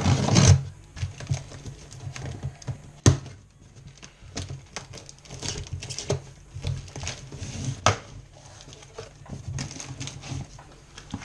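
Knife slitting the packing tape along a cardboard box's seam, a loud rasp in the first half-second, then scraping and rustling as the cardboard is handled and the flaps opened, with sharp knocks about three seconds in and again about eight seconds in.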